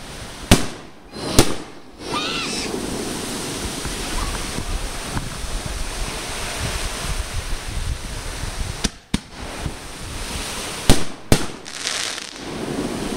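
Aerial fireworks bursting with sharp bangs: two near the start, then a cluster of four between about nine and eleven and a half seconds in, with a steady rushing background noise in between.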